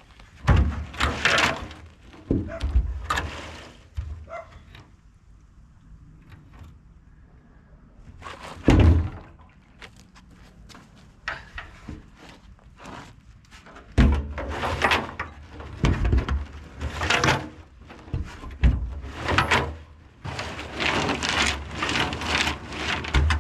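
Rusted truck fuel tank being shaken by hand with water and chains inside to scour out rust: chains clattering and water sloshing against the tank walls in irregular bouts, with heavy thunks.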